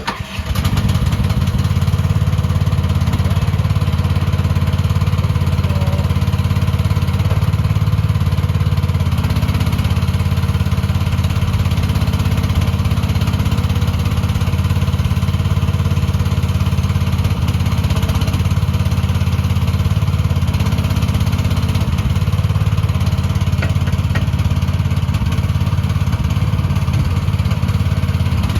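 AGT H15 mini excavator's small engine starting, catching at once, then running steadily.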